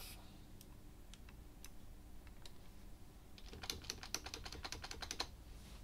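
A few scattered single clicks, then a quick run of computer keyboard key presses lasting about two seconds, starting around three and a half seconds in.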